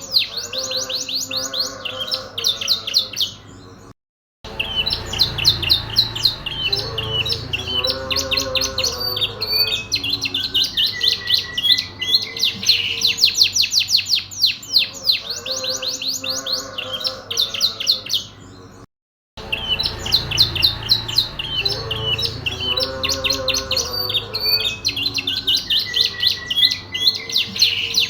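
Domestic canary singing long runs of rapid, high trills, with lower arching warbled notes beneath. The song repeats itself about every fifteen seconds, as a looped recording does, with two short dropouts into silence about four and nineteen seconds in.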